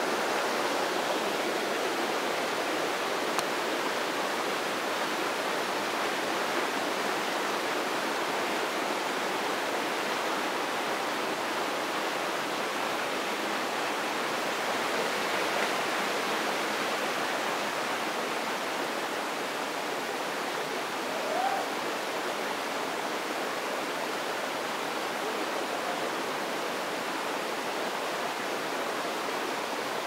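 Water rushing steadily over rocks in a small forest stream, pouring through cascades and a small waterfall.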